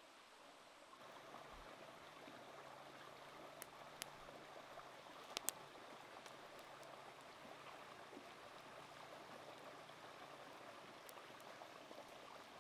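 Faint, steady rush of a shallow stream running over rocks, with a few sharp clicks between about three and six seconds in.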